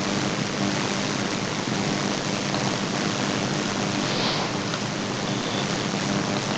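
Steady rushing background noise with a low, even hum underneath, like a running machine close to the microphone.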